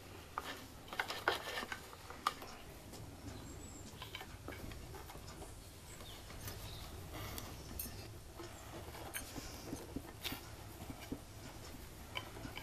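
Hands working yarn threads on a small wooden hand loom: faint rustling with scattered light clicks and taps of wood, over a low steady hum.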